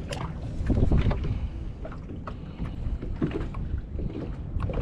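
Wind rumbling on the microphone, with a few short clicks and knocks of fishing gear being handled.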